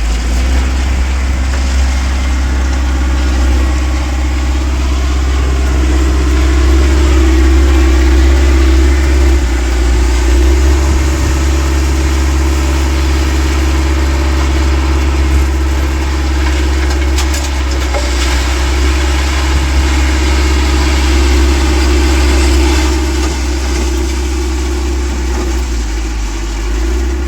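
AJAX Argo self-loading concrete mixer's diesel engine running steadily under load, with a constant low rumble.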